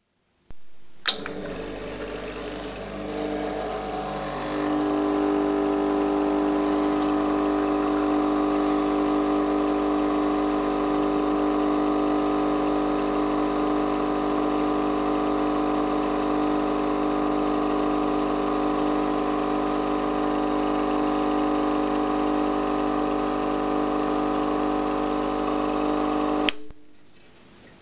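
Rancilio Silvia espresso machine's vibratory pump running through a double-shot extraction, a steady loud hum. It starts with a click, gets louder about four seconds in, and stops with a click near the end as the shot is cut off.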